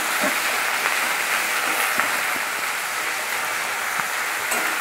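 Sliced onions and green chillies sizzling steadily as they fry in hot oil in a metal kadai. A metal spatula stirs them, giving a few clicks and scrapes against the pan.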